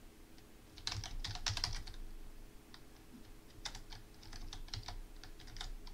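Computer keyboard being typed on in two quick runs of keystrokes, one about a second in and a longer one from about three and a half seconds in.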